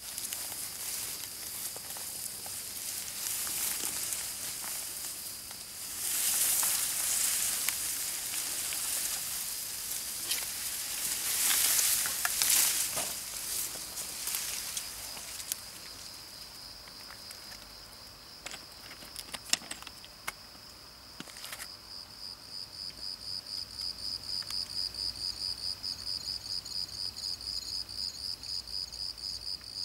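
Rustling with a few sharp clicks in the first half, then a cricket chirping in a fast, even pulse from about two-thirds of the way in.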